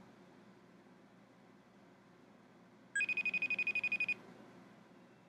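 An iPad rings for a FaceTime call: one high electronic trill, about a second long, about three seconds in.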